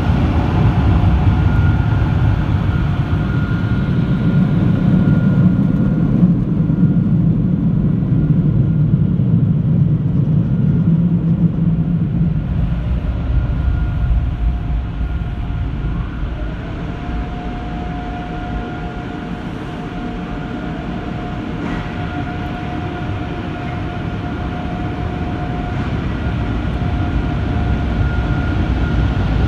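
Automated tunnel car wash machinery heard from inside the car: a loud, steady rumble with a constant high whine. It eases about halfway through and swells again near the end, where the car sits under the overhead air-dryer nozzles.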